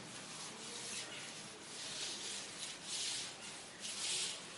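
Felt chalkboard duster rubbing chalk off a blackboard in repeated strokes, which come closer together in the second half.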